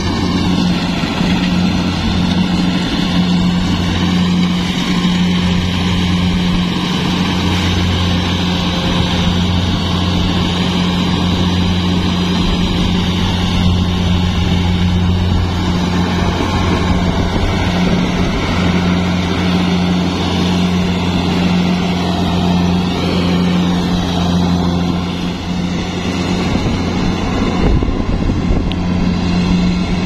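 Kubota DC-70 Plus combine harvester's diesel engine and machinery running steadily as it cuts rice, a loud, even low drone.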